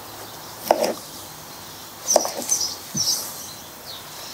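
Knife slicing through a cucumber onto a plastic cutting board: a few separate sharp knocks of the blade meeting the board, irregularly spaced.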